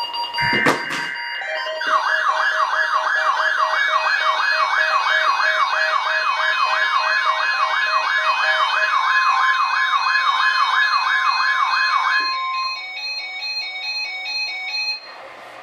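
Weather radio receiver's alert alarm: a siren-like tone sweeping up and down about four times a second, with a steady alert tone under it. Short bursts of buzzing digital header tones and a click come first, and the siren cuts off about twelve seconds in, with fainter beeping after.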